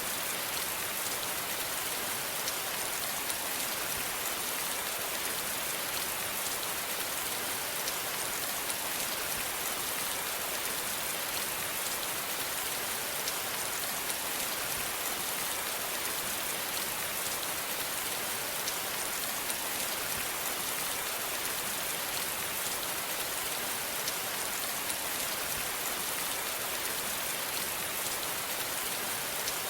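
Steady rain falling on a surface, an even hiss with fine scattered drop ticks and no change in intensity.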